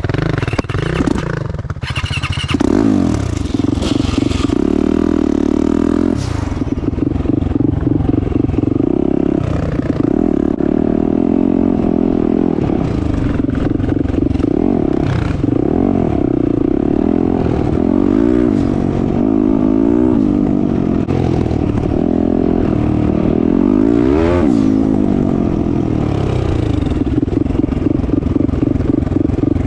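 Turbocharged 2021 Yamaha YZ450F's single-cylinder four-stroke engine running under way on a dirt trail, the revs rising and falling over and over with the throttle, with a sharp climb about three-quarters of the way through.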